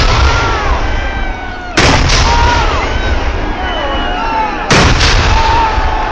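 Kerala temple fireworks (vedikettu) going off in heavy, sudden blasts: one about two seconds in, then two close together near the end, with the crowd shouting between the bangs.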